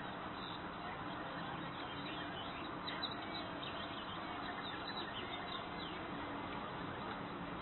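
European bee-eaters calling faintly, short high calls repeated again and again, over a steady outdoor hiss.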